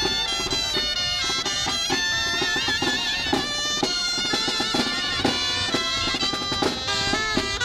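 Traditional folk music: high wind instruments playing a wavering melody over a steady drum beat.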